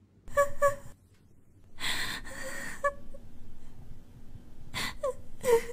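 A person's short, sharp gasps and breathy exhalations in a few separate bursts, the last two near the end falling in pitch.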